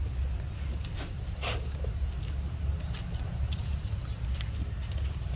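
Forest insects trilling steadily at a high pitch over a low rumble, with a few faint clicks.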